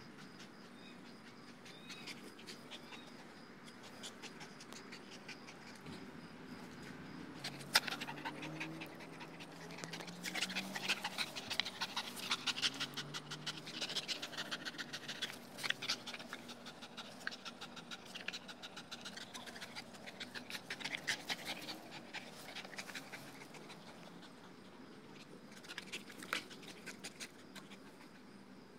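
Dogo Argentino panting rapidly from exertion, heaviest in the middle and easing toward the end.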